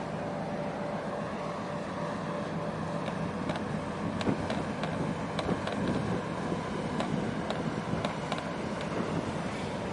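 Steady low drone of a ship's or boat's engine, with water slapping and splashing in short sharp hits from about three seconds in.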